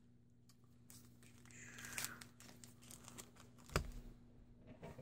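Trading-card booster-pack wrappers crinkling and being torn open for about two seconds, then a single sharp knock about four seconds in.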